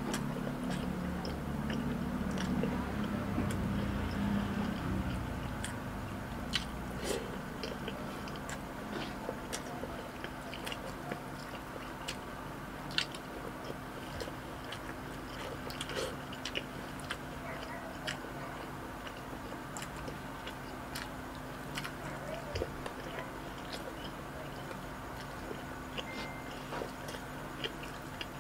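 Close-miked eating sounds: a person chewing mouthfuls of rice and ground pork eaten by hand, with many short, sharp wet mouth clicks and smacks.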